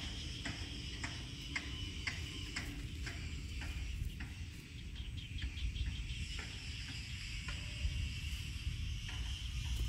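Insects chirping outdoors: a steady high buzz with regular ticks about twice a second for the first few seconds, then looser ticking, over a low rumble.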